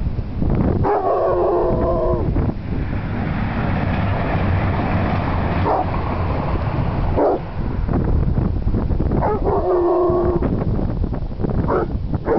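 Young dog giving spooked alarm barks: two drawn-out, howl-like barks about eight seconds apart, with a few short sharp cries between them. Steady wind noise on the microphone runs underneath.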